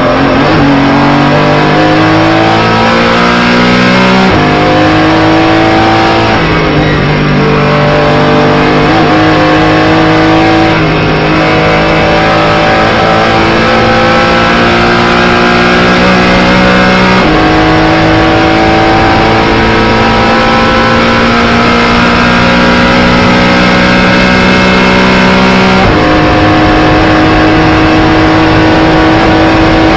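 Porsche Cayman GT4 Clubsport's flat-six engine heard from inside the cockpit, pulling hard at full throttle through the gears. Its pitch climbs steadily and drops sharply at four upshifts, about 4, 6, 17 and 26 seconds in.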